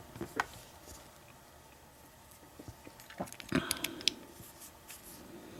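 Scattered small metallic clicks and taps of an American 1100 padlock and lock picks being handled, with a short cluster of clatter a little past halfway.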